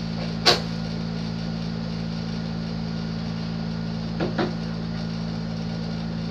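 Steady low hum with a sharp click about half a second in and two lighter clicks around four seconds, as the switch and controls of a pink toy speaker are handled. No music comes out: the speaker is not working.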